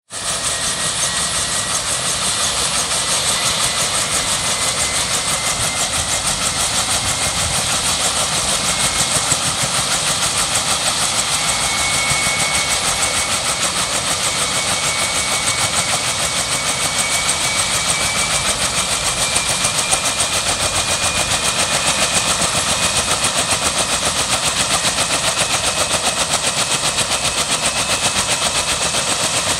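Kaman K-MAX helicopter running on the ground: the steady whine of its turboshaft engine under the fast, even beat of its intermeshing rotors.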